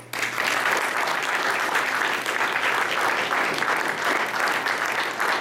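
Audience applauding. The clapping breaks out all at once and goes on steadily.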